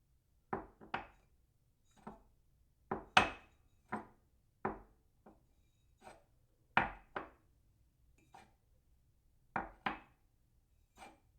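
A ceramic cup set down on its saucer again and again: short clinks, often two in quick succession as the cup lands and settles, with gaps of about half a second to a second between them. The loudest pair comes about three seconds in.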